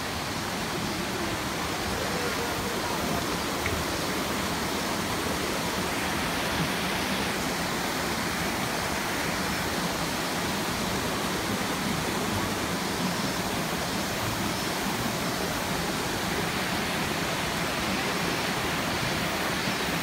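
Steady rush of a forest stream cascading in small falls over mossy boulders.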